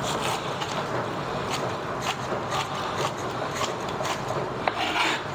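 Chef's knife slicing baby corn on a cutting board: a run of irregular knife taps as the blade strikes the board.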